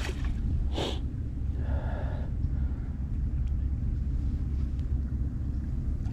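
Wind buffeting the microphone, giving a steady low rumble, with one brief hissing noise about a second in.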